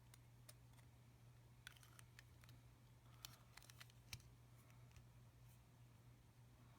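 Near silence over a steady low hum, with a scattering of faint small clicks and taps from handling a Cross Century ballpoint pen and its refill. The clicks come closest together about halfway through.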